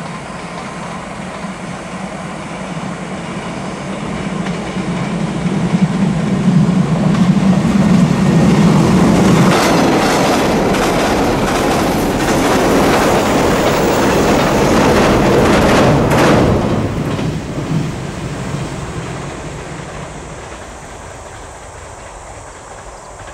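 JR 381 series limited express electric train approaching and running past at speed, its wheels clattering in a regular clickety-clack. It swells, is loudest near the middle, then fades as the train moves away.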